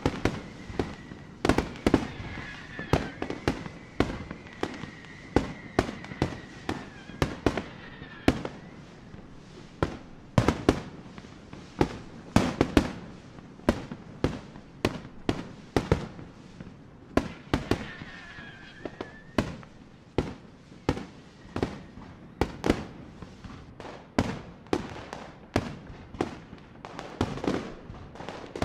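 Fireworks display: a continuous run of sharp bangs from bursting shells, often several a second. A thin high whistle sounds through the first eight seconds or so and again briefly past the middle.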